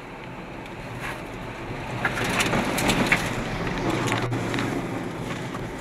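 In-cabin driving noise of a Ford EcoSport diesel on the move: engine and road noise as a steady rush with a low hum, growing louder over the first three seconds. A single sharp click about four seconds in.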